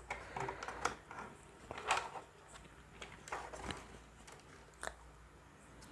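Faint, scattered clicks and taps of hard plastic being handled: the speakers' colour rings and the speakers themselves being moved about in a plastic packing tray, a handful of short knocks about a second apart.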